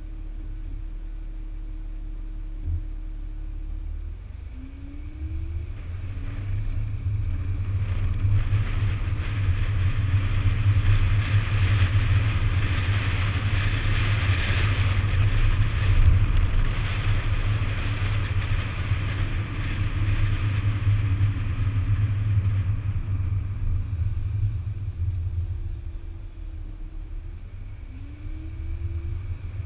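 2008 Audi A5's 3.2-litre V6 idling, then pulling away with its pitch rising about four seconds in. Tyre and wind noise build to a steady cruise, then fade as the car slows to a stop, and it accelerates again near the end. Heard from beside the front wheel.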